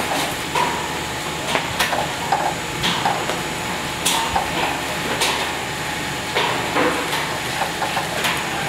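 Spatula scraping and knocking against a nonstick frying pan while stirring, giving irregular sharp clicks about once a second over a steady hiss.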